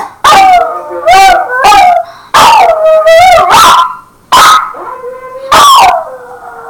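Small wiry-coated dog howling, a string of about seven loud howls close together, each starting high and sliding down in pitch.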